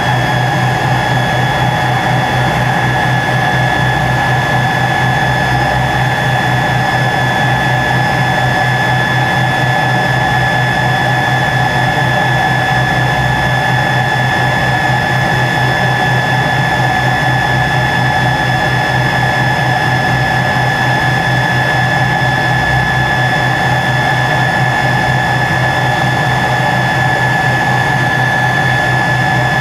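Tupolev Tu-134's rear-mounted Soloviev D-30 turbofan engines heard from inside the cabin while the aircraft taxis at low power. It is a loud, steady whine with a higher whistle above it and a low fluttering hum underneath.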